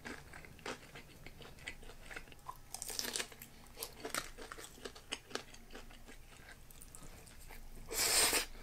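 Close-up eating sounds: chewing, with crisp crunches from bites of freshly fried karaage, as short scattered clicks and crackles. Near the end comes a louder, noisy slurp of about half a second as spaghetti is sucked in.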